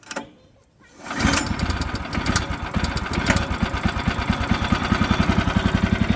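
Small gasoline engine of a portable bandsaw mill being started: a brief cranking burst, then the engine catches about a second in and runs steadily with an even firing rhythm.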